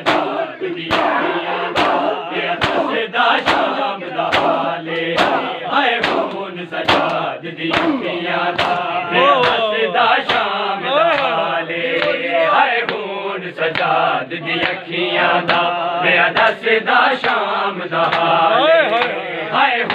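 A crowd of men performing matam: unison open-hand chest-beating slaps, a little more than one a second, over a many-voiced mourning chant sung in the same rhythm.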